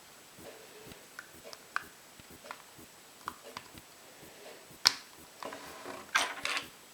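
Small plastic toys and surprise-egg parts being handled: light clicks and taps, one sharp snap about five seconds in, then a short rustle.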